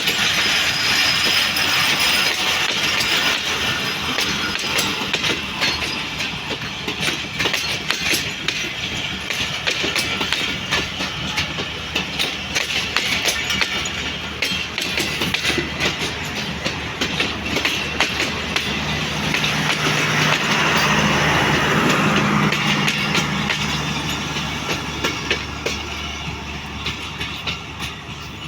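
Passing train: a dense clickety-clack of wheels running over rail joints throughout. A steady low diesel engine hum joins about twenty seconds in, and the whole sound slowly fades near the end.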